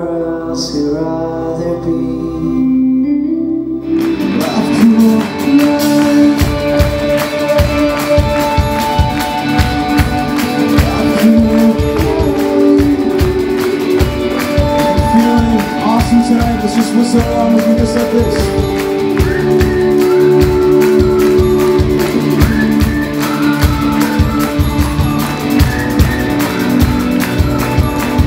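Live worship band playing a song with male vocals, electric and acoustic guitars, bass and drums. The full band swells in about four seconds in, and the drums drive a steady beat from about six seconds.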